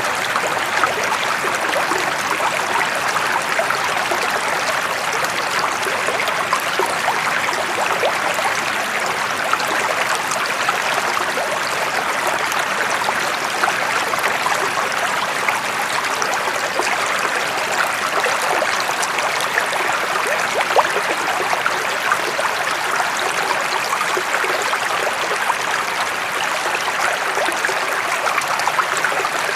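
Flowing water: a steady, even rush with many small splashes all through.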